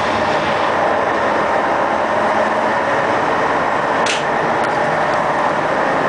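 Boat engine running steadily at speed under way, with rushing water and wind noise, and a brief hiss about four seconds in.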